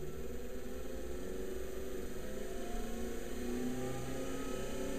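Axminster AH1218VS midi lathe's variable-speed motor and belt drive running with no workpiece, its hum slowly rising in pitch as the speed is turned up. Very smooth and quiet.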